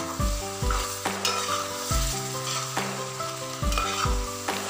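A spoon stirring beef masala in a metal pot as its liquid boils down with a steady sizzle, over background music.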